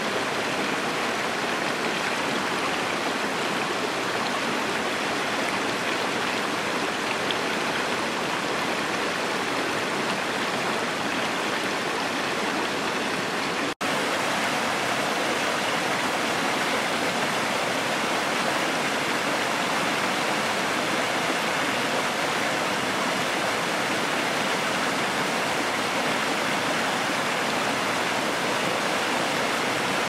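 Mountain stream rushing and splashing over rocks in small cascades, a steady full rush of water. It cuts out for an instant about halfway through.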